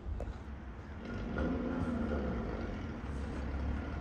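Porsche Cayman GT4's flat-six engine running through its modified exhaust as the car drives slowly across the lot. It grows louder about a second in and then holds a steady note.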